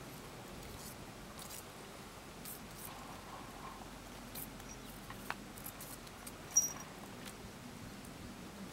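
Quiet outdoor background with faint scattered ticks and rustles, and one brief high-pitched chirp about two-thirds of the way through.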